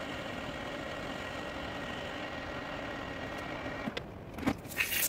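Metal lathe running with a steady whine from its drive, switched off about four seconds in with a click. A few clicks and short hissing bursts follow near the end.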